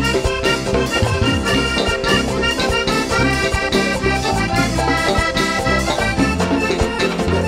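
Accordion-led Latin band music with no singing: the accordion carries the melody over a steady bass line.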